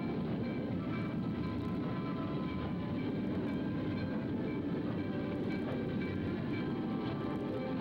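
Steam-hauled passenger train rolling past on yard tracks: a steady rumble of the cars on the rails.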